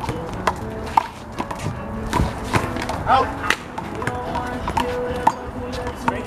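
Handball rally: a string of sharp smacks as a rubber handball is struck by hand, hits the wall and bounces on the court, over background music.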